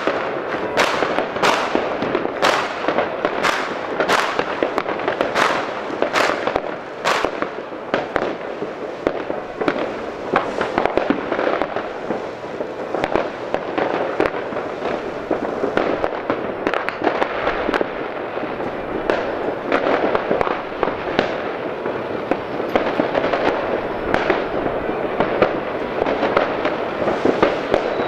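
Many fireworks going off all over a town: firecrackers and rockets banging in a continuous barrage. There are sharp separate cracks about two a second for the first several seconds, then a denser, blurred crackle of many overlapping bangs.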